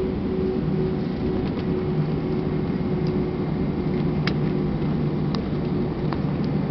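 Steady rumble in the cabin of an Airbus A319 rolling out on the runway after landing: engines running and wheels rolling, with a steady hum that stops about four seconds in and a few light clicks.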